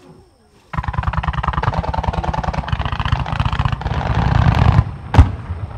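Aerial fireworks in a starmine: a fast, dense string of pops and bangs starts suddenly under a second in and grows louder, then one single loud boom near the end.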